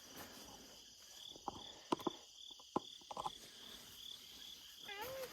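Crickets chirping in a steady rhythm, about two and a half chirps a second. A few sharp clicks come in the middle, and a brief wavering call near the end.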